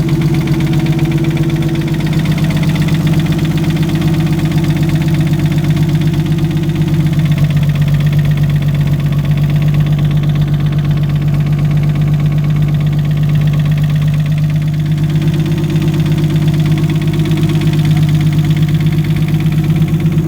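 Nissan RB25DET turbocharged straight-six idling steadily with a rapid, even knocking from within the engine, which the owner takes for rod knock.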